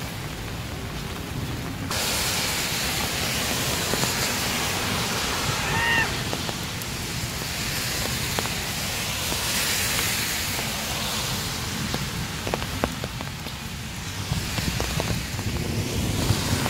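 Steady hiss of rain and car traffic on wet roads, which jumps up abruptly about two seconds in and swells twice more, over a low rumble. A short high chirp sounds about six seconds in.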